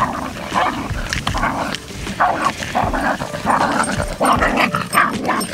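A dog making short, rough sounds over and over, about two a second.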